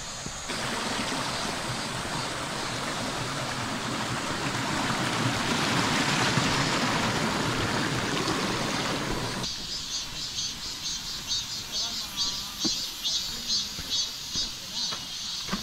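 Mountain stream rushing over rocks, swelling toward the middle. After an abrupt cut about nine seconds in, the rushing gives way to insects calling in a fast pulsing rhythm, about two or three pulses a second.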